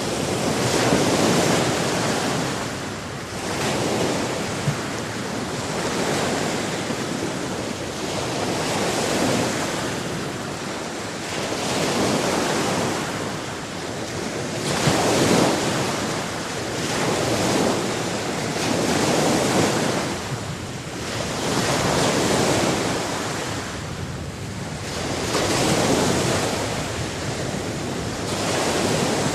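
Sea waves breaking and washing ashore, surging and falling back every few seconds in a steady rolling rhythm.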